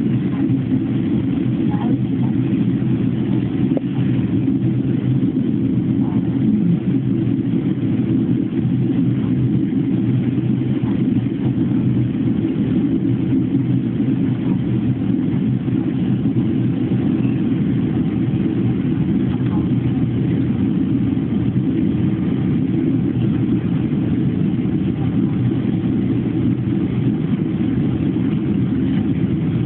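Steady low drone inside the passenger cabin of a Boeing 767-300 airliner during its descent: engine and airflow noise, even and unbroken throughout.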